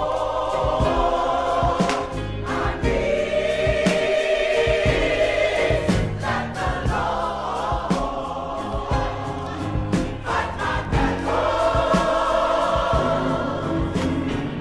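Gospel mass choir singing long held chords over a band with a steady beat.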